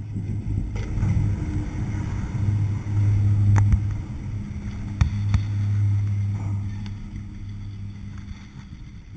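Chairlift machinery running with a steady low hum as the chair rides into the top terminal, with a few sharp clacks around the middle. The hum fades over the last couple of seconds.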